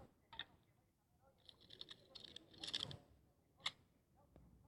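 Several sharp, separate clicks with a short run of rapid clicking and rattling in the middle.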